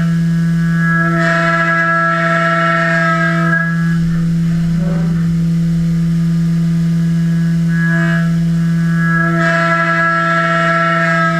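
CNC vertical milling machine cutting a V8 engine adapter plate under flood coolant, making a steady droning tone. A brighter, higher whine swells over it about a second in and again about eight seconds in.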